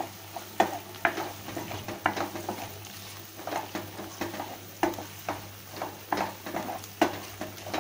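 Wooden spatula stirring raw mango slices and onion frying in oil in a non-stick kadhai: irregular scrapes and light knocks against the pan, roughly one or two a second, over a soft sizzle.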